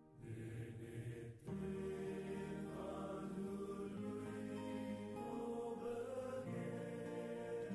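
Background music of slow chanted singing in long-held notes, with a brief break about a second and a half in.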